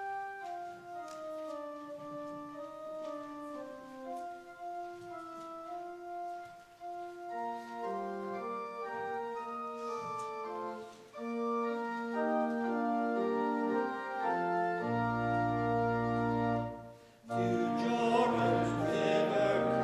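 Church organ playing a hymn introduction: a single melody line at first, then full chords with a deep pedal bass. After a short break about two seconds before the end, the congregation begins singing the hymn with the organ.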